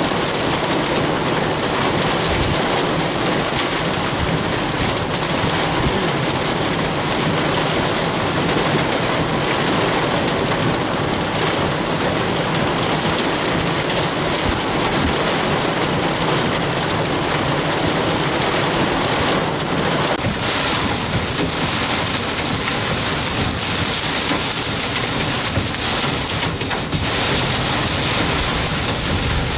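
Heavy thunderstorm rain pouring steadily, a dense, even rush of noise.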